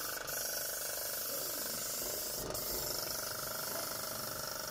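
Electric airless paint sprayer running: the motor-driven piston pump whirs steadily with a fast, even pulsing, over a steady hiss.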